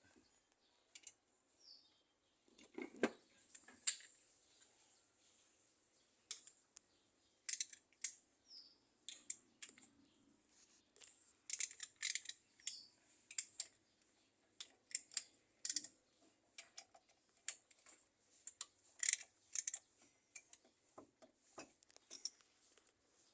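Metal hand tools clinking and tapping during engine work: scattered, irregular sharp clicks and light metallic taps.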